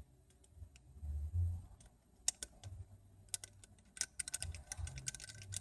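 Small sharp clicks and taps of tools and small phone parts being handled, scattered at first and coming in quick clusters in the second half, with a few low muffled handling thumps.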